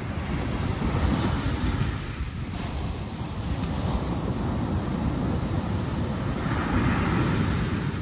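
Sea waves breaking on a pebble beach. The surf swells about a second in and again near the end, with a steady wash in between.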